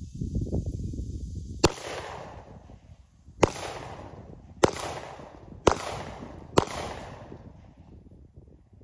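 Five handgun shots fired at irregular intervals, about a second apart, the first about a second and a half in and the last three quicker. Each crack is followed by a short fading echo. Before the first shot there is a low rumble from the wheeled target cart being pulled across the grass.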